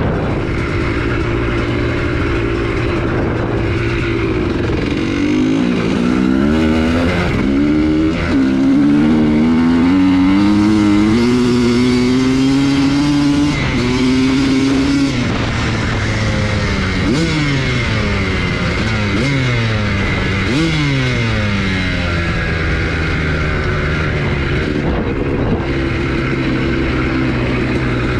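2003 Honda CR250R two-stroke single running under way, the revs climbing in steps through several gear changes. Then come several quick swoops up and down in pitch, settling into a steady run near the end.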